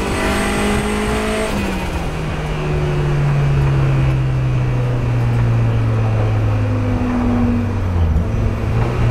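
Turbocharged Mazda MX-5's 1.6-litre four-cylinder engine running high in the revs, dropping in pitch about a second and a half in, then running steadily at lower revs.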